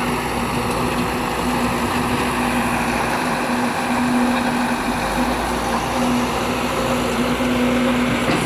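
A truck pump running steadily: a constant hum over an even wash of noise.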